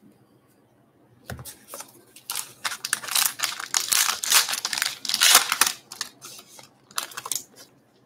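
The wrapper of a Topps Gypsy Queen baseball card pack being torn open and crinkled by hand, loudest in the middle, with smaller crackles tailing off near the end. A soft thump comes about a second in.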